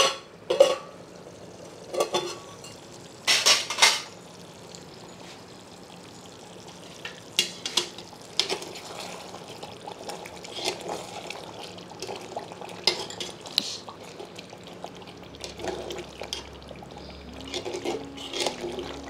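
A metal lid clanks against a metal cooking pot several times in the first four seconds. Then a spoon stirs and scrapes through thick chicken gravy in the pot, with light clinks against the metal.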